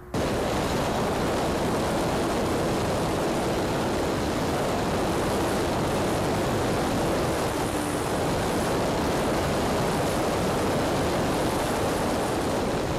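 Steady rushing wind noise of airflow over a camera mounted on an electric E-flite Sukhoi RC airplane in flight, an even roar with no clear motor tone showing through.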